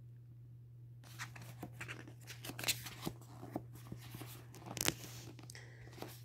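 Pages of a paperback graphic novel being handled and turned: after about a second of quiet, a string of soft, irregular paper rustles and flicks, the loudest about five seconds in.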